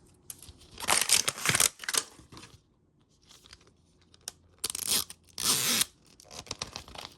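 Plastic packaging of a Mini Brands capsule being torn open and crinkled by hand, in several short rustling bursts with small clicks between.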